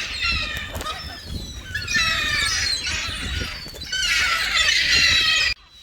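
A flock of gulls calling, many overlapping calls coming in three loud waves over a low rumble, cutting off suddenly near the end.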